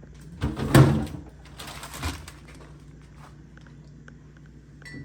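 Groceries being handled and put away in a refrigerator. There is a loud scraping clatter about half a second to a second in, a shorter rustle around two seconds, and then only a low steady hum.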